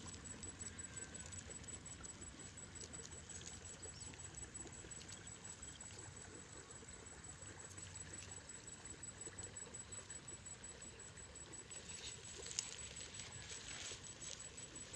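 Faint, irregular rustling and crackling of dry grass stalks, with a thin steady high-pitched whine throughout.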